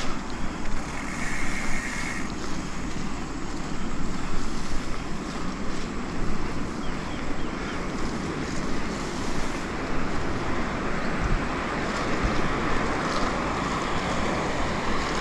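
Wind rushing over a GoPro action camera's microphone as a mountain bike rolls along a grassy dirt track, with the tyres running steadily underneath.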